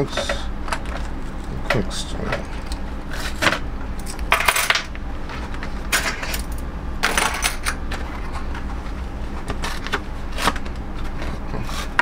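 Small metal multi-tool pieces clicking and clinking as they are handled and set down on a desk, with a few short bursts of crinkling plastic blister packaging.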